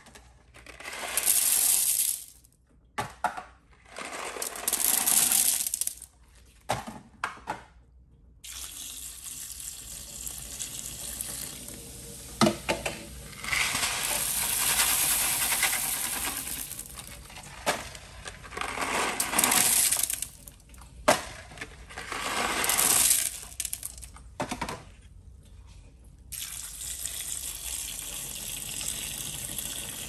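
Handfuls of small coated candies poured from boxes and bags into a porcelain toilet bowl, rattling onto the growing pile in several bursts of a few seconds each. Near the end a steadier pour of liquid splashes onto the candy.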